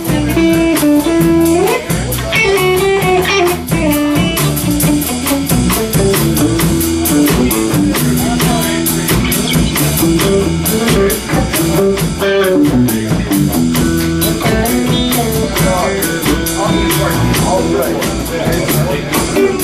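Live blues band playing: electric guitar and electric bass over a drum kit with a steady cymbal beat.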